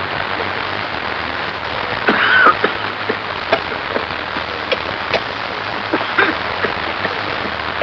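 Steady rain hiss with scattered drips and clicks, and a short louder sound about two seconds in.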